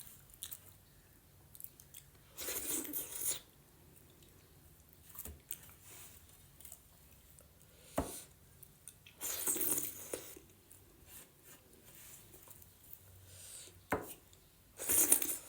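Close-up eating sounds of a person eating maize dhido: wet chewing and mouth noises, with three louder noisy bursts of about a second each and two sharp clicks.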